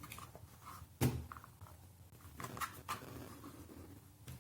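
Tutis pram's rear wheel crunching as it is pressed down on its axle: one sharp crack about a second in, then a few softer crackles a little later. The crunch comes from the wheel's plastic cover rubbing against the rim under load, the source of the pram's squeak in motion.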